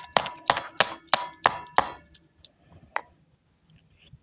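Sharp metallic tapping, about three evenly spaced strikes a second, stopping about two seconds in, with one more strike near three seconds.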